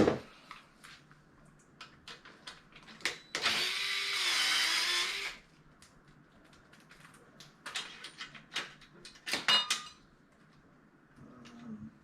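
A power drill runs for about two seconds, its pitch wavering, amid scattered clicks and knocks of tools and parts being handled.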